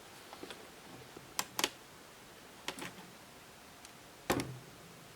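A few sharp, scattered clicks and taps in pairs, about five in all, the loudest a knock a little past four seconds in.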